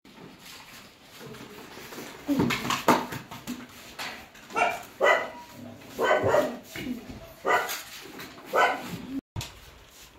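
A dog barking repeatedly: about eight short barks, irregularly spaced, starting about two seconds in.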